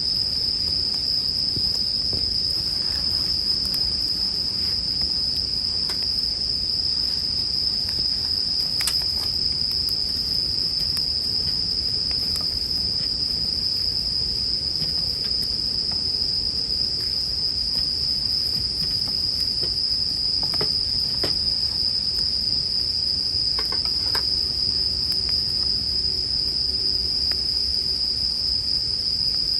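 Bell crickets (suzumushi) singing in a steady high-pitched chorus, with a campfire's soft low noise and a few sharp crackles and pops underneath.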